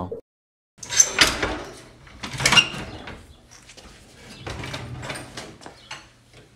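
Clanks, knocks and rattles of hands and tools working on an air-cooled VW Beetle engine in its engine bay, loudest in the first couple of seconds and thinning out later, over a faint low hum.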